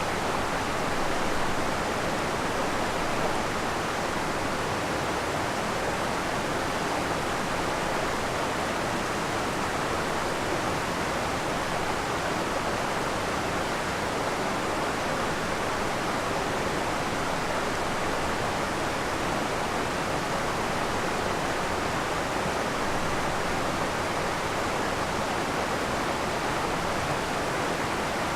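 Sweet Creek waterfall: water falling and rushing over rock in a steady, unbroken roar, with no separate splashes standing out.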